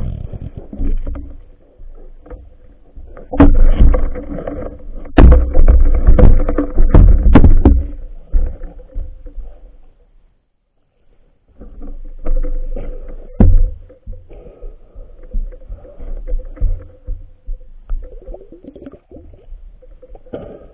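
Muffled underwater sound picked up by a phone underwater: low rumbling water noise with a run of loud knocks and thuds between about three and eight seconds in and another about thirteen seconds in, as the phone is bumped and handled at close range. The sound drops almost to nothing for a moment about ten seconds in.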